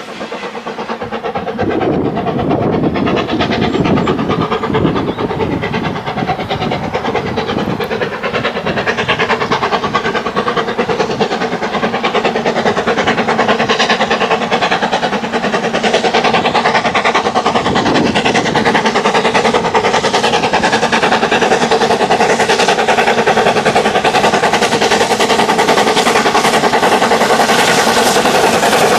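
Steam locomotive hauling a passenger train, working hard with a rapid beat of exhaust, growing louder as it approaches.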